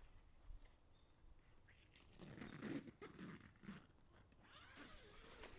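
Near silence: faint ambience with a few soft, muffled sounds about halfway through.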